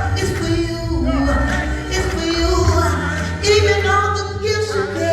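Live gospel praise music: a band with a heavy bass line under singing voices.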